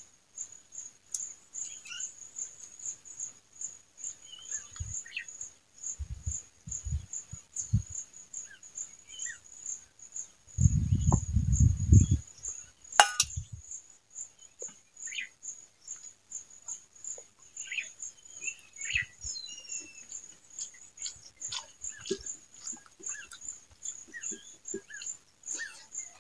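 Steady high insect chirping, about three pulses a second, under the soft scattered clicks and smacks of rice being eaten by hand and chewed. About ten seconds in there is a loud low rumbling thump lasting over a second, then a single sharp click.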